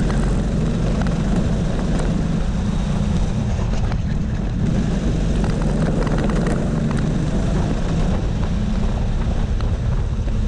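A kart's engine heard from on board, running steadily under load as the kart laps the circuit, its low, dense note holding a fairly even pitch and level throughout.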